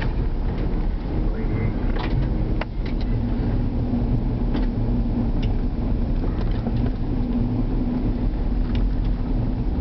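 Car interior while driving over packed snow: a steady low rumble of engine and tyres with a constant hum, and scattered faint clicks.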